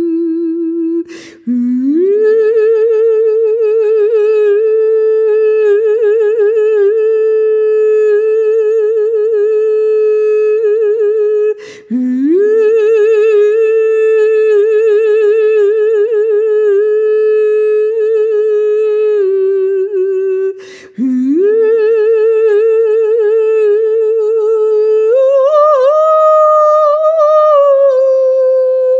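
A woman's solo wordless vocal: long held notes with vibrato. The notes break three times for a breath, each followed by a slide up into the next note, and near the end the pitch steps up.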